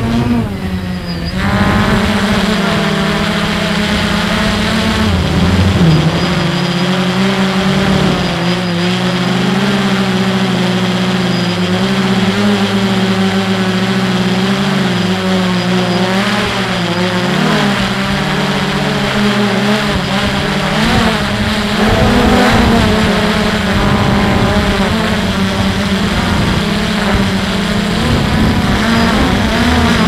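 Multirotor drone's motors and propellers humming as heard from its onboard camera: several close pitches that waver up and down as the motors change speed.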